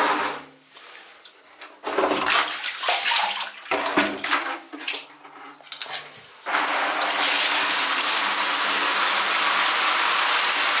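Scattered knocks and rustles, then, a little past halfway, a shower is turned on and water starts to pour in a sudden, steady rush.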